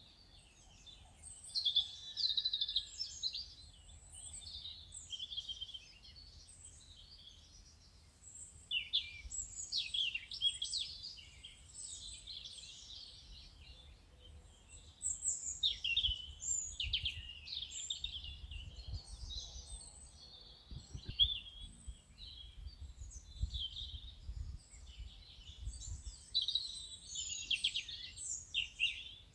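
Several songbirds chirping and trilling in overlapping phrases, a busy natural bird chorus, over a faint low rumble.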